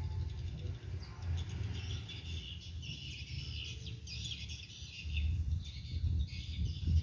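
Small birds chirping busily in the background over a steady low rumble that grows louder near the end.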